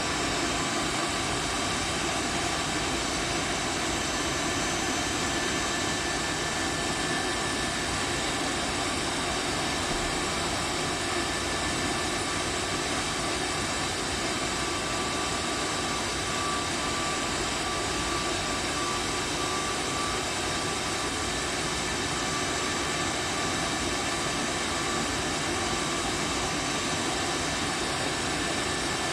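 Tunnel car wash machine running: a steady, even rush of noise with faint steady whining tones over it.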